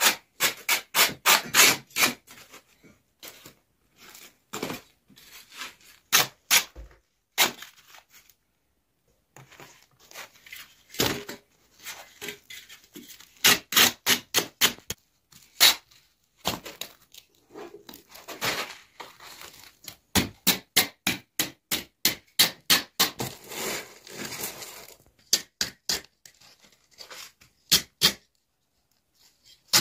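A knife scraping the scorched crust of freshly baked naan: quick rasping strokes in runs of several a second, with short pauses between runs.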